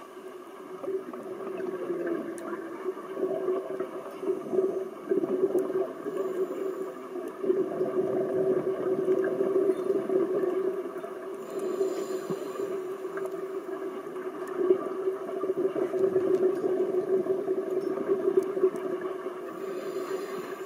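Underwater ambience heard through a diver's camera: a steady low drone carried through the water, wavering in loudness, with two short hisses of a scuba regulator, about halfway through and near the end.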